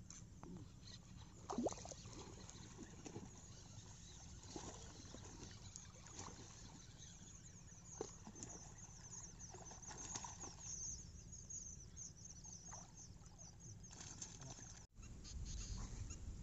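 Faint wetland outdoor ambience: scattered small clicks and soft splashes, with a stretch of rapid high-pitched chirping in the middle and a steady low rumble that grows louder after a break near the end.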